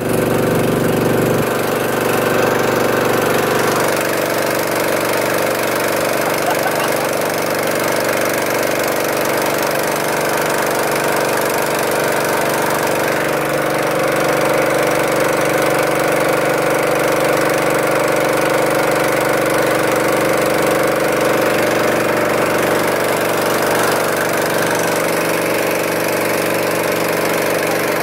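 Engine of a small wooden passenger boat running steadily while the boat is under way, heard from aboard, a constant even drone.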